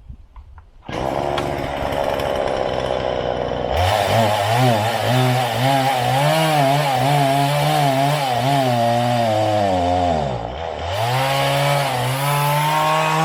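Two-stroke chainsaw engine starting about a second in, then revved, its speed wavering up and down, sagging sharply and picking up again about ten seconds in. The saw bogs down at high revs, which the owner thinks could be a blocked air filter or a carburettor blockage.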